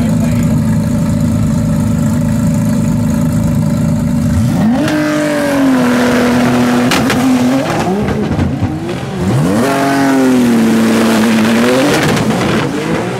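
Nissan GT-R drag car's twin-turbo V6 holding a steady drone at the starting line, then revving up sharply about five seconds in and holding high revs. A run of crackling pops follows, then the engine climbs again as the car launches down the track.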